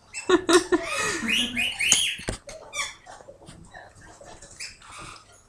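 Kittens mewing, a few short calls that rise and fall in pitch during the first two seconds, then faint irregular clicks and crunches as they eat dry cat food from a plate.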